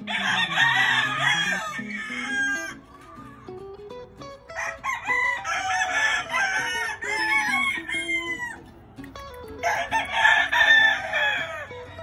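Rooster crowing three times, each crow a long call of two to three seconds, over quieter background guitar music.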